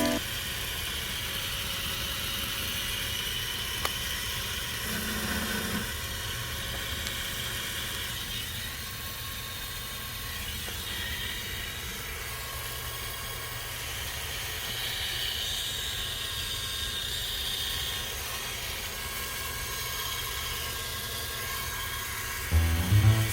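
Small 12 V DC bevel gear motor, 42 mm square, with helical pinion and helical bevel gears, running steadily under power: a constant low hum with a faint higher whir.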